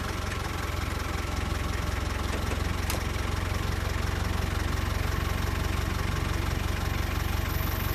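Safari vehicle's engine idling steadily at low revs.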